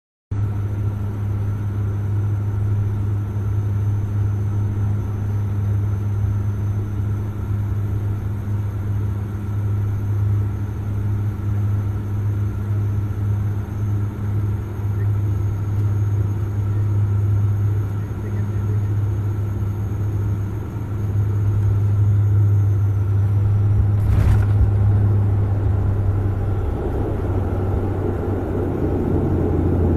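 Airliner engines heard from inside the cabin during landing: a steady low drone with a faint high whine, which slides down in pitch and stops about 23 seconds in. A single sharp thump follows, then a louder rushing rumble builds as the airliner rolls along the runway.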